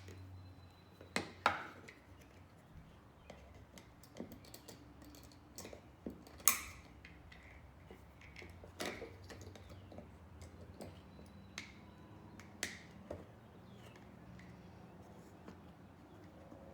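Irregular small clicks and taps of metal parts against a Glock 43's polymer frame as the pistol is reassembled, with a few sharper clicks spread through, over a faint steady hum.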